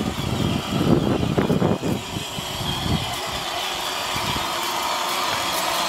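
Battery-powered Barbie Jeep ride-on toy car driving over grass and dry leaves: its electric drive motors and gearboxes run with a steady whine. A rough rumble from the plastic wheels dominates for about the first two seconds, then eases off.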